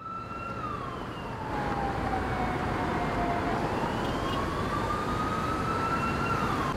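An emergency-vehicle siren wailing, one slow fall in pitch and rise back up, then dropping away near the end, over steady city street traffic noise that fades in.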